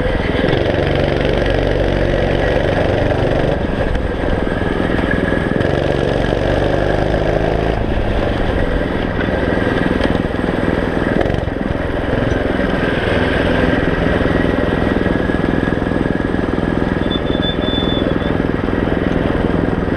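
Kart's small single-cylinder four-stroke engine running close behind the seat, its pitch rising and falling with the throttle through the corners.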